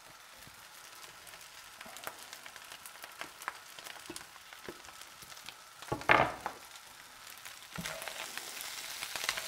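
Fried rice sizzling and crackling in a frying pan as sliced leek is pushed off a wooden cutting board into it and stirred in with a spatula. A louder short burst comes about six seconds in.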